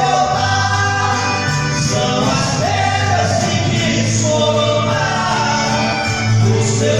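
Two men singing a gospel song together over instrumental backing with a steady bass line.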